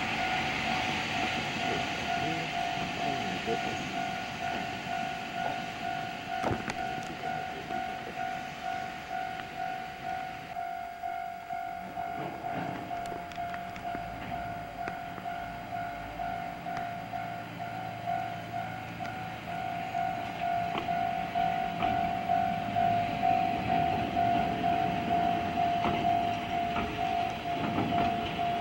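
Level-crossing warning bell ringing in a steady rhythm, about one and a half strikes a second, while a freight train of oil tank wagons rolls past close by. The train's rumble dips about ten seconds in and builds again toward the end.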